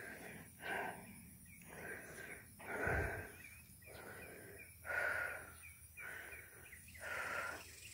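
A person breathing heavily and close to the phone's microphone: hissy, wheezy breaths in and out, about one a second.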